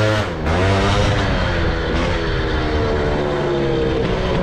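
Two-stroke moped engine with a Polini cylinder kit running at high revs under way, with a short dip in revs just under half a second in, then holding high with its pitch slowly easing down.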